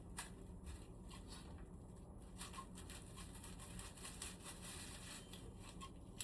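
Faint, scattered light clicks and rustles of parts being handled, over a steady low room hum.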